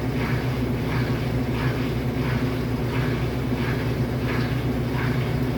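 Brastemp 8 kg Tira Manchas washing machine in its spin cycle: a steady motor hum with a swish that repeats about every two-thirds of a second.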